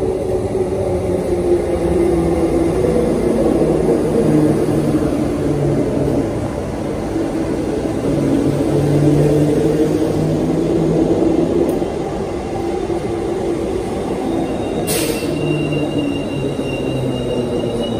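Transperth electric suburban train pulling into a station platform, its motors and wheels making a steady rumble and hum as the carriages pass close by. As it slows near the end, a thin high brake squeal starts and a short hiss comes about fifteen seconds in.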